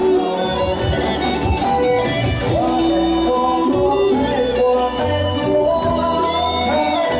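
Khmer pop song performed live: a singer over a backing band.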